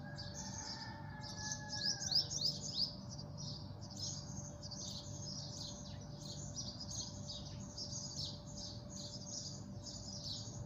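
Small birds chirping continuously, a dense chatter of short high calls, a little louder about two seconds in, over a faint steady hum.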